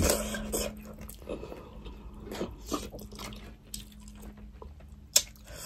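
Close-up mouth sounds of people eating fish and rice by hand: soft chewing with small wet smacks and clicks, and one sharper click about five seconds in. A faint steady low hum runs underneath.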